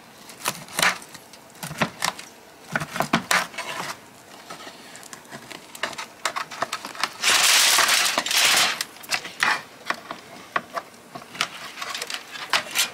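Knife and fork clinking and scraping against a metal pan as cooked ribs are cut apart, a string of short sharp clicks. About seven seconds in comes a loud rustling noise lasting about a second and a half.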